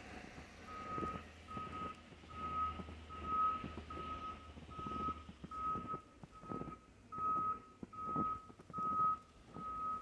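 A vehicle's reversing alarm beeping steadily, a little more than once a second, with a low engine rumble fading out about halfway through. Footsteps crunch in fresh snow.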